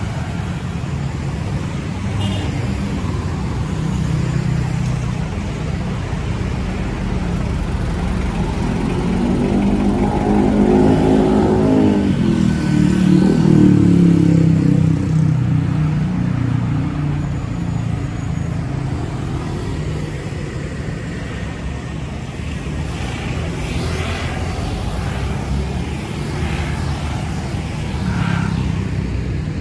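Road traffic running steadily. About halfway through, one vehicle's engine passes close by, its note rising as it approaches and dropping as it goes past.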